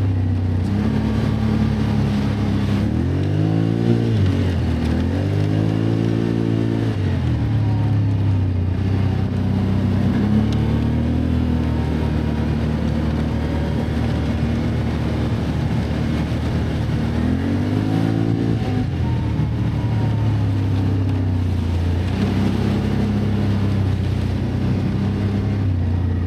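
Can-Am ATV engine running under way, its revs rising and falling three times: about three seconds in, again about five seconds in, and once more near eighteen seconds.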